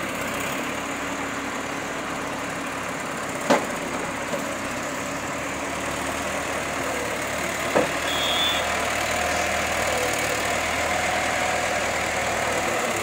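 Diesel tractor with a front-loader attachment running as it drives forward, a little louder after about eight seconds. Two sharp knocks stand out, about four seconds apart.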